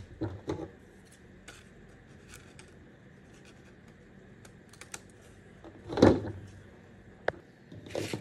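Light clicks and rustles of crepe-paper leaves and scissors being handled on a tabletop, with a louder thump about six seconds in.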